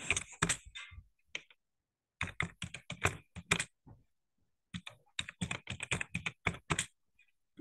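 Typing on a computer keyboard: three quick runs of keystrokes with pauses of about a second between them.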